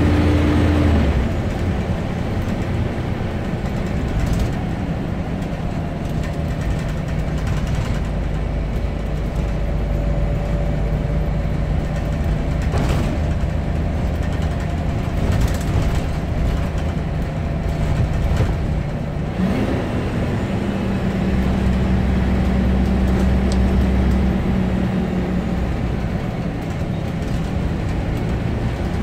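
Scania OmniCity bus heard from inside the passenger saloon while driving: a steady low diesel engine drone. The engine note drops about a second in, then rises in pitch about twenty seconds in. A few light knocks and rattles come from the body.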